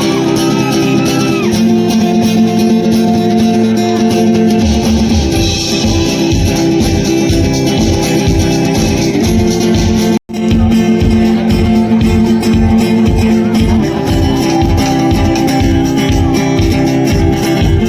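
Background music led by guitar, with a steady beat that comes in about four and a half seconds in; it drops out for an instant about ten seconds in.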